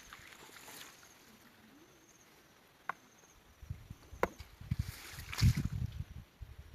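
Water sloshing and splashing in a few irregular surges in the second half, with a couple of sharp knocks, the sort of sound made by moving through or handling gear in shallow water.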